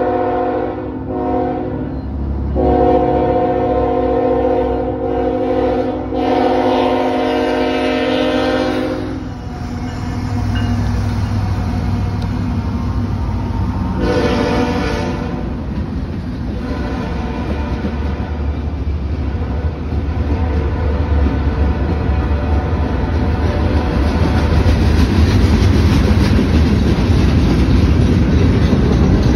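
Air horn of a CSX freight train's lead diesel locomotive sounding several short blasts and then one held for several seconds, with another short blast about halfway through. The diesel locomotives rumble by, and then the freight cars roll past with a rhythmic clatter that grows louder near the end.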